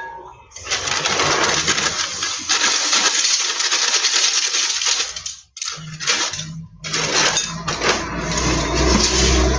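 Cornflakes poured from their bag into a glass bowl: a dense crackly rustle of dry flakes landing. It comes in three pours, with short breaks about five and a half and nearly seven seconds in.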